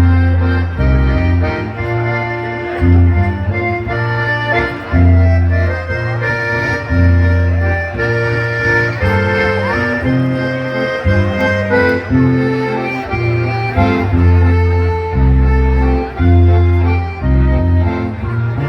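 A band playing a waltz: a melody of held notes over deep bass notes that come in a regular pulse.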